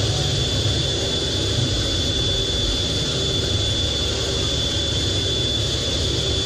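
F/A-18 jet engines running steadily while the jet taxis on a carrier deck: a continuous high whine over a low rumble, heard from the cockpit.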